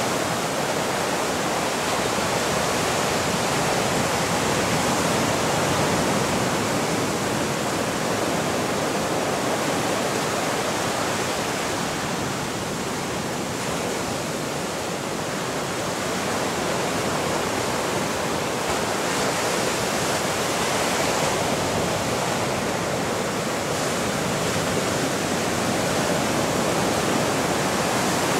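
Steady rushing water noise, swelling and easing slightly every several seconds.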